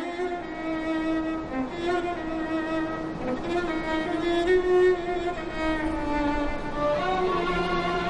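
Background music: a slow melody of long held notes, with a lower held note joining about seven seconds in.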